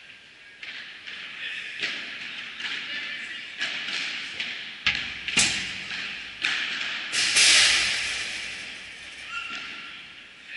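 Padel rally in an indoor hall: a string of sharp ball strikes off rackets and the court, coming every half second to a second, each echoing in the hall. The loudest impact comes about seven seconds in and dies away slowly.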